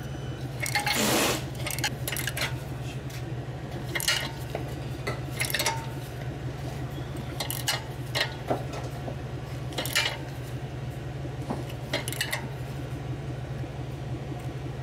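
A ratchet and an oxygen-sensor socket clicking and clinking now and then as a new downstream oxygen sensor is tightened into the exhaust pipe. A steady low hum runs underneath.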